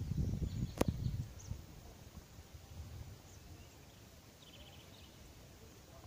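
Faint birdsong in trees: a few short high chirps and a quick rapid trill about halfway through. A low rumble on the microphone and a sharp click come in the first second or so.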